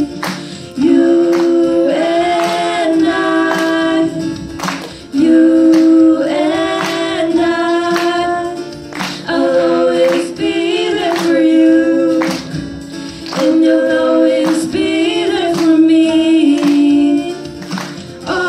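Two women singing together into handheld microphones, holding long notes, over a backing track with a steady beat.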